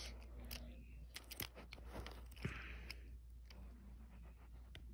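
Faint handling noise of a small die-cast Hot Wheels toy car being turned in the fingers: scattered light clicks and a brief soft rustle about halfway through.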